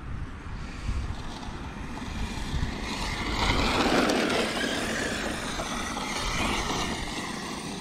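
Arrma Mojave 8S RC truck's brushless electric motor whining as the truck drives through grass. It grows louder about three seconds in and eases off after about six seconds, over a steady low rumble.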